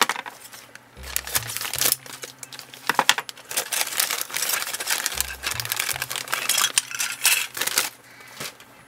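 Clear plastic bag crinkling and rustling as it is handled and a white plastic model-kit sprue is worked out of it, with small clicks of the plastic parts. Background music with a low bass figure that repeats about every four seconds plays underneath.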